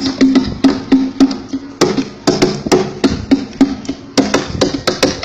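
Percussion: sharp knocking strikes in a rhythm, about three a second, some carrying a short low ring.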